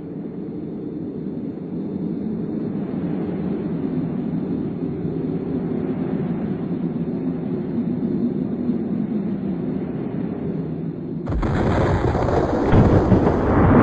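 Low, steady rumbling drone of a sound-effects soundtrack. About eleven seconds in, it cuts suddenly to a much louder, fuller rumble that swells again near the end.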